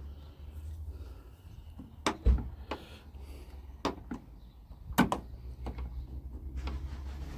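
Sharp clicks and knocks of metal and plastic parts inside a VW T5 Transporter door as the door handle's cable is worked off, loudest about two and five seconds in, over a low steady hum.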